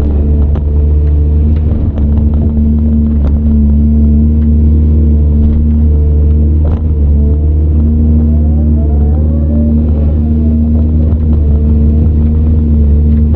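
A CAT 395 hydraulic excavator's diesel engine running steadily at working speed, with a deep, even drone. Faint whines glide up and down about two-thirds of the way through, and a couple of sharp clicks stand out.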